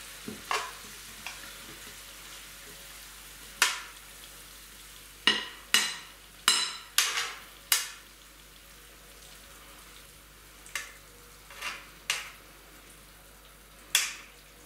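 A metal fork scraping and knocking against a frying pan as pasta is pushed out of it: about a dozen short, sharp clinks, several in quick succession from about five to eight seconds in, and a few more near the end.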